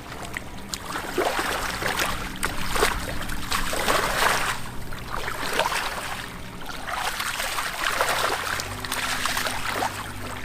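Shallow muddy water sloshing and splashing in uneven bursts as hands work through it, groping for fish.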